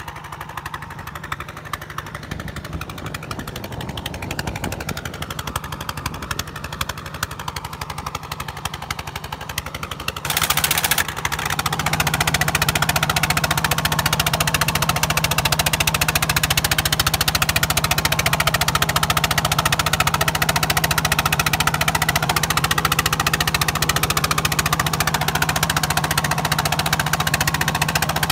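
Single-cylinder diesel engine of a two-wheel paddy tractor running steadily. About ten seconds in it gets suddenly louder and stays louder as the tractor moves through the flooded field.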